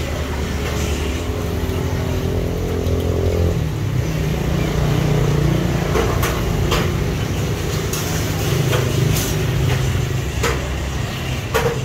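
A motor vehicle engine runs steadily, its pitch shifting a few seconds in, with several sharp metal clinks of tongs against the wok of frying oil.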